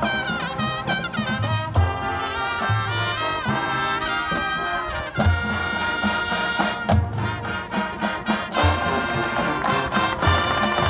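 High school marching band playing, its brass section of trumpets and trombones holding loud chords over repeated bass drum hits.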